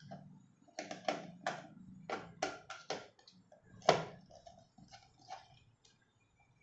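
A screwdriver taking screws out of an electric kettle's base: a series of separate clicks and taps, the loudest about four seconds in.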